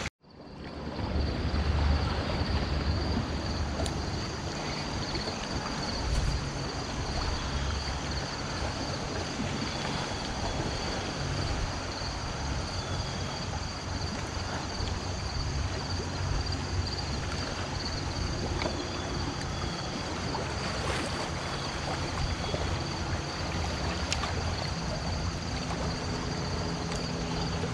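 Wind buffeting the microphone, with a low uneven rumble, over steady outdoor noise of canal water lapping at the bulkhead and a faint steady high tone.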